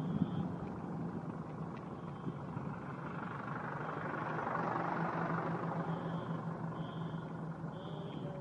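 Car running, heard from inside the cabin: a steady low engine hum under road noise, which swells around the middle as a truck passes close alongside. Short high beeps come about once a second near the end.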